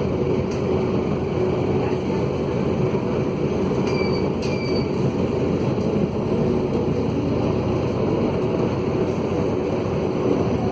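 Mercedes-Benz OM904LA four-cylinder turbo-diesel of a midibus running under way with a broken exhaust, giving a steady, loud rumble. Two brief high squeaks sound about four seconds in.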